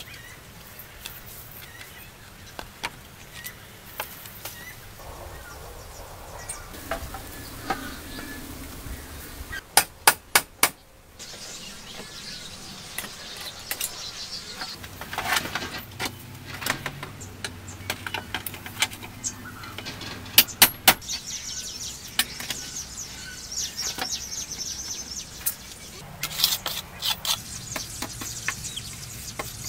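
Hand-tool work on a bamboo wall: sharp knocks, four in quick succession about a third of the way in and three more about two-thirds in, amid scattered clicks and scraping. Near the end a trowel scrapes and taps mortar along the base of the bamboo poles.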